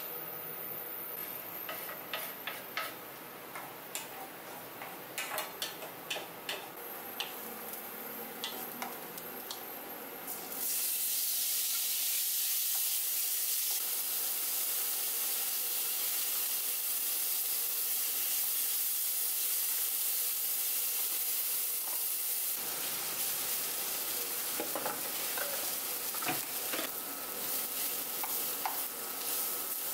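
Food frying in a ceramic-coated frying pan on an induction cooktop. Light utensil taps and clicks at first, then a loud steady sizzle from about a third of the way in, lasting about twelve seconds. It gives way to a wooden spoon tapping and scraping as rice is stirred in the pan.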